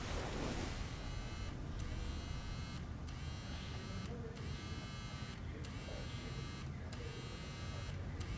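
Smartphone vibrating with an incoming call: a steady buzz broken by short pauses about every second and a quarter.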